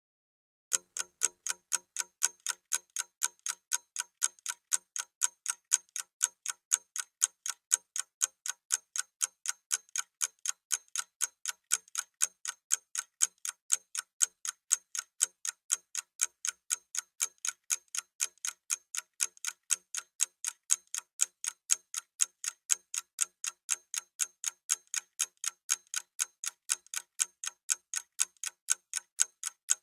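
Clock-ticking sound effect counting down a 30-second timer: even, sharp ticks, about two to three a second, starting about a second in.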